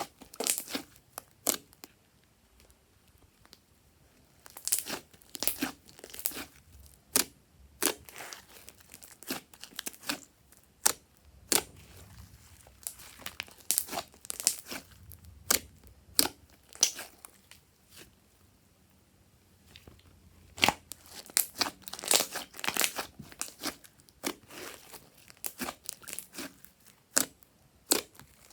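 Slime being squeezed and stretched by hand, giving irregular sharp crackles and pops in clusters.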